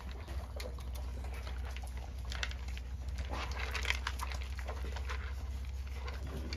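Golden Retriever puppies eating dry kibble from a plastic bowl: a scatter of crunches and clicks of kibble and bowl, busiest around the middle, over a steady low hum.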